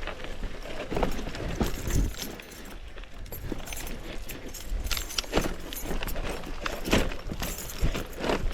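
Mountain bike rattling and clattering over rough ground on a descent: irregular sharp knocks and jangles, the hardest several seconds apart, over a steady low rumble.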